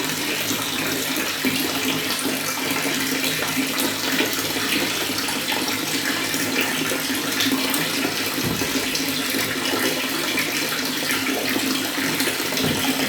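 Water running steadily into a bathtub, a continuous rush and splash with a low steady tone under it.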